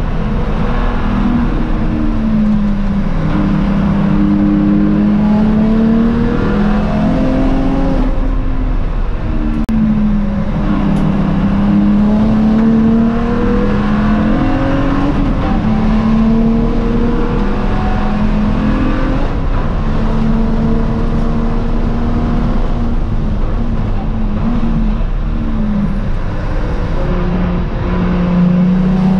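BMW E92 335i race car's N54 twin-turbo straight-six driven hard on track, its revs climbing and dropping back again and again through the laps.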